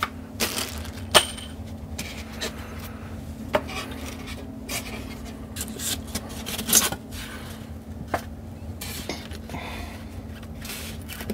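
Scattered metallic clinks and knocks from handling a Heathkit SB-220 amplifier packed in a wooden crate, the sharpest about a second in, over a steady low hum.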